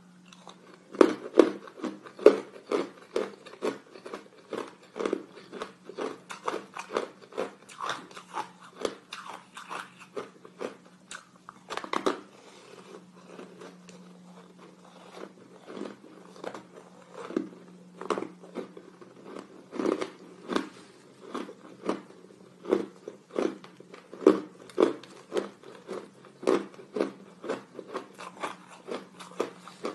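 Hard, crunchy ice being bitten and chewed: a steady run of sharp crunches, about two or three a second, loudest near the start and easing off briefly about halfway through. A faint steady low hum sits underneath.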